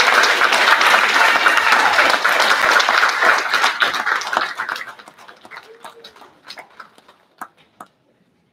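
A congregation applauding. The applause dies away about five seconds in, leaving a few last scattered claps before it stops.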